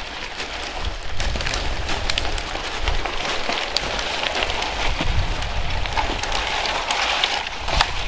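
Steady hiss dotted with many small ticks and crackles, over low irregular rumbling on the microphone.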